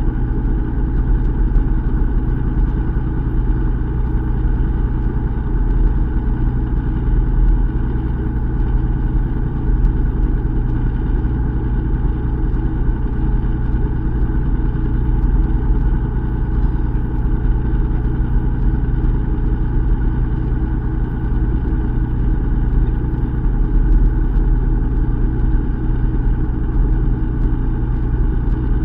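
Fishing boat's engine running with a slow, steady hum, heard from on board.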